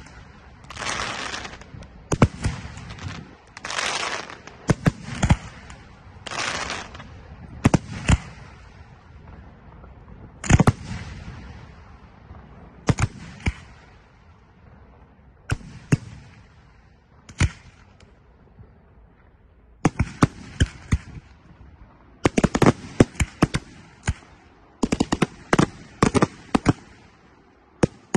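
Aerial fireworks shells bursting in a display: sharp bangs, with several longer bursts of hissing crackle in the first few seconds. The bangs thin out midway, then a dense rapid volley of bangs fills the last third.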